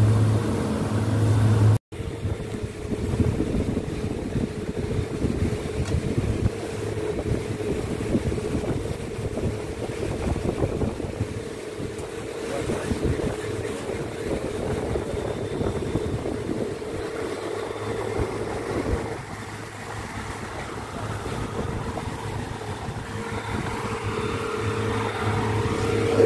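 Twin outboard motors of a speedboat running steadily at speed, with water rushing in the wake and wind on the microphone. The sound cuts out for an instant about two seconds in, and the engine hum comes back stronger near the end.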